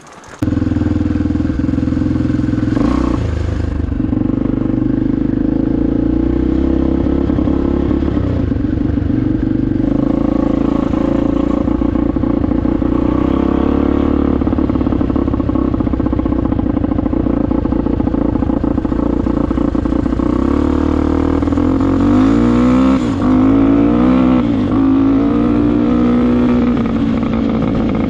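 Honda XR250 dirt bike's four-stroke single-cylinder engine running under way, starting abruptly just after the start and staying steady, with the engine speed rising and falling several times near the end.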